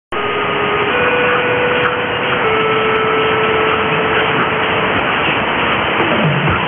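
Weak 648 kHz mediumwave AM signal through a Perseus software-defined receiver in synchronous AM mode: a steady rush of static and hiss. Faint held tones sit in the noise and step in pitch about a second in and again about two and a half seconds in.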